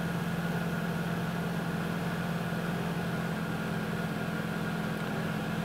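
2011 Jeep Patriot's four-cylinder engine idling with a steady, even hum, cold-started with the CVT fluid still cold.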